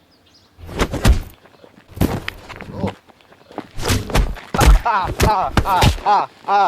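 Heavy thuds, scuffling and blows of a person being jumped and beaten, coming in several clusters. In the second half a voice cries out in short, repeated yells.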